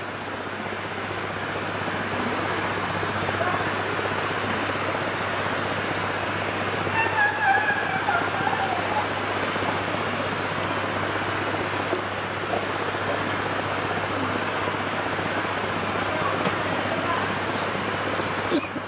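River water rushing steadily over shallow rocky rapids, with a brief wavering call about seven seconds in.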